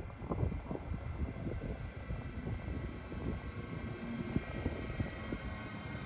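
Siemens Vectron electric locomotive approaching slowly: a steady high-pitched whine from its electrical equipment over an uneven low rumble.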